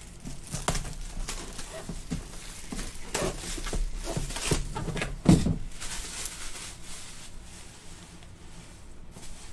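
Plastic shrink-wrap being torn and crinkled off a cardboard trading-card box, with irregular crackling and rustling, and a thump about five seconds in as the box is handled. After about six seconds the rustling grows quieter and sparser.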